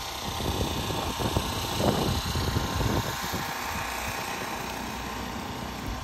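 Footsteps trudging through deep, wet snow, with soft crunching steps mostly in the first half, over wind rumbling on the microphone.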